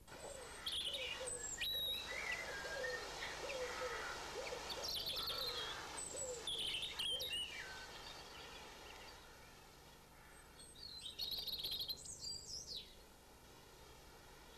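Birds chirping and calling, many short high chirps over lower warbling notes, fading out and then returning in a second brief flurry near the end.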